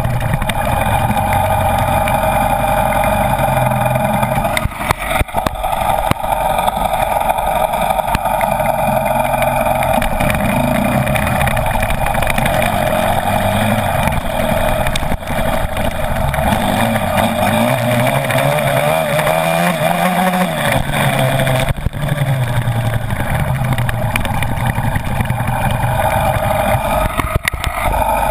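Motocross dirt bike engine running under way, heard from close up at the front fender, its pitch rising and falling as the throttle is worked, with a long rise and fall past the middle.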